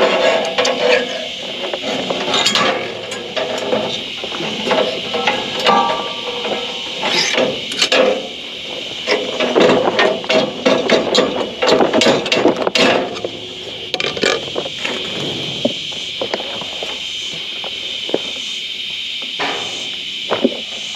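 Irregular clanks, knocks and clicks of mechanical work, over a steady high hiss.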